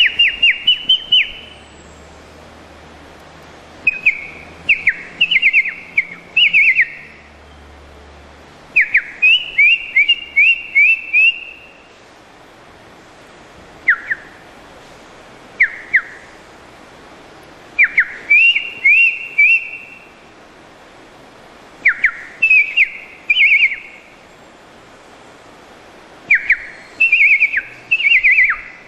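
A person whistling an imitation of a tropical mockingbird's song: clusters of short, sharp whistled notes, each cluster a second or two long, repeated about every two seconds.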